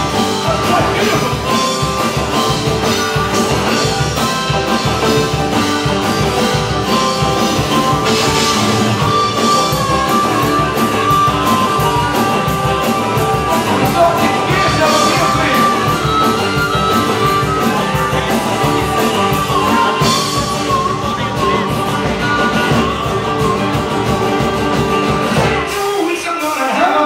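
Live rock band playing a rock and roll song: strummed acoustic guitar, drum kit and a man singing. Near the end the low end drops out briefly.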